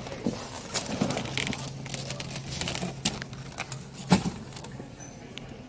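Irregular crinkling, crackling and clicking handling noise close to the microphone, over a steady low hum; the sharpest click comes about four seconds in.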